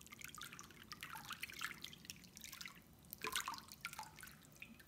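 A hand swishing through bathwater: faint, irregular small splashes and drips, with louder spurts about one and a half seconds in and again about three seconds in.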